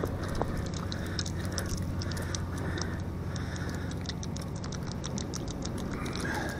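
Quick small clicks and pattering of gloved hands handling a live mackerel to work it off a sabiki rig, over a steady low hum.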